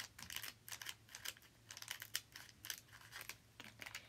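Foil booster-pack wrapper crinkling and crackling in quick, irregular crackles as it is worked open with scissors.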